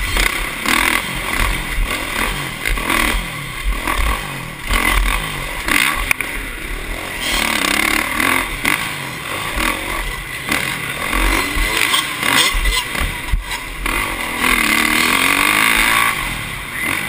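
Motocross bike engine revving up and down repeatedly as it is ridden hard around a dirt track, heard from the rider's helmet camera with low buffeting on the microphone. A long, loud rev comes near the end.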